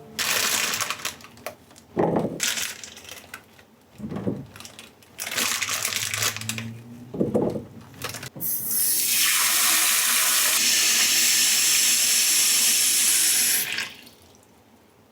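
Water running from a tap into a sink: several short spurts of splashing, then a steady stream for about five seconds that is shut off near the end.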